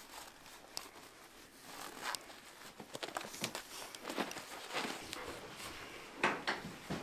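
Irregular footsteps with the rustle and knock of clothing and gear.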